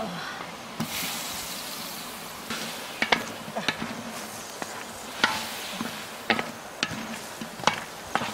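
Duck and pineapple sizzling in a large metal wok. From about three seconds in, a wooden spatula stirs the pieces, with sharp irregular scrapes and knocks against the pan.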